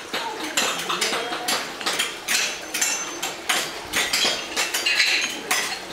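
Several craftsmen chipping ceramic tile pieces with small hammers: many sharp taps and clinks, several a second, irregular and overlapping.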